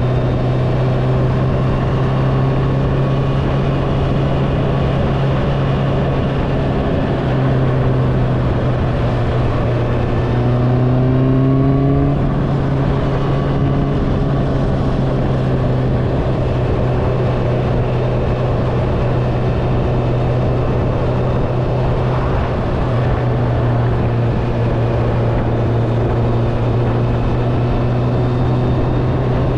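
Honda CBR650R inline-four with an Akrapovič exhaust, running steadily at cruising speed over wind rush. About ten seconds in, the engine note briefly rises in pitch.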